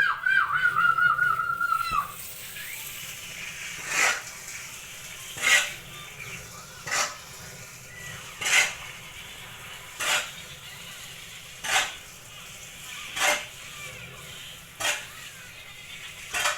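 A cat meows in one long, wavering call at the start. Then a short swishing scrape repeats evenly, about once every second and a half, as the sawdust substrate mix is worked by hand.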